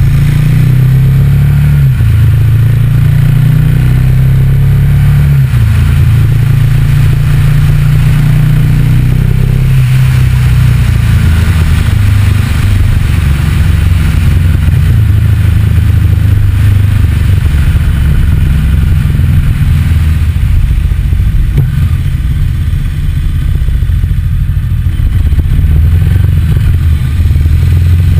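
Motorcycle engine running under way, with wind and road noise; the engine note shifts pitch a few times as the bike changes speed.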